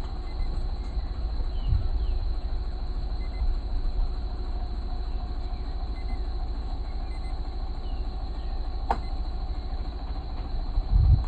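Safari vehicle driving along a park track: a steady low engine and road rumble, with a steady high-pitched tone above it and one sharp click about nine seconds in.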